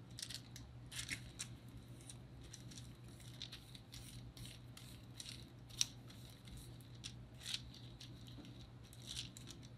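Faint, irregular light scrapes and ticks of a long metal clay blade pressed through air-dry foam clay against a plastic work sheet. Fingers slide on the sheet as the thin offcut strip is pulled away.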